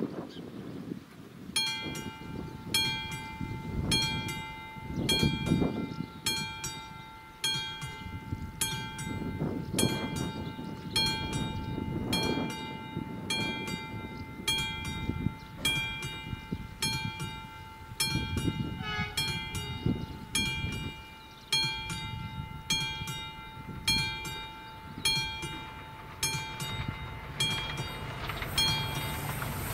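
Classic electromechanical level-crossing bell starting up about one and a half seconds in, then striking steadily at nearly two strikes a second with a ringing tone, signalling that a train is approaching the crossing. Near the end a rising rushing noise builds as the train nears.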